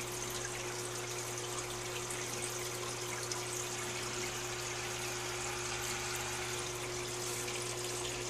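Aquarium filter running: a steady trickle of moving water with a constant low hum.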